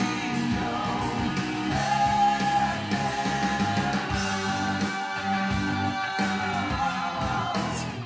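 Metal song with a singing voice and guitars, played from vinyl through a valve amplifier and Totem Staaf floor-standing speakers and heard in the room. A long sung note is held from about two seconds in until near the end.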